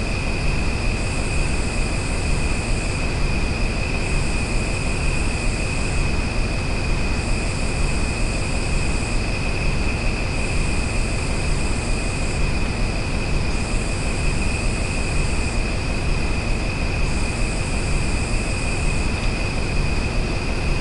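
Outdoor nature ambience: a steady rushing noise, heaviest in the low end, under a continuous high-pitched tone and a still higher buzz that comes on for about two seconds out of every three.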